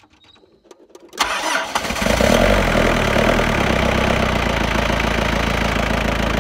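Mitsubishi Triton diesel engine cranked by the starter about a second in, catching almost at once and settling into a steady idle. It starts on the first try after sitting unused for a few months.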